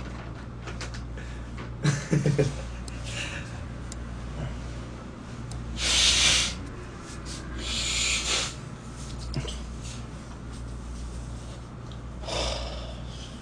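A man's loud, noisy breaths through the nose and mouth: two strong ones about two seconds apart in the middle and a fainter one near the end, with a short low vocal sound near the start. A steady low hum runs underneath.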